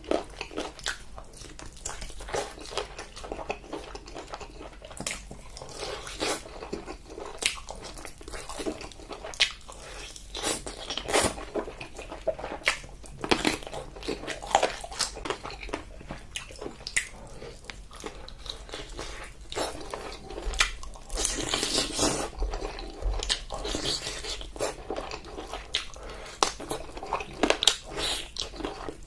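Close-up crunchy chewing and biting of food, with irregular sharp crunches and mouth clicks.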